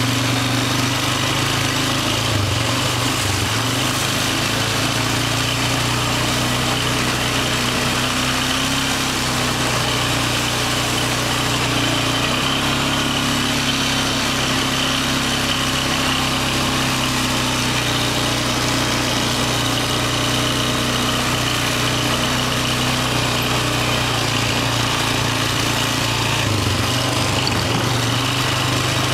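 ATV engine running steadily while riding along, its note holding nearly constant with brief slight dips a few seconds in and near the end.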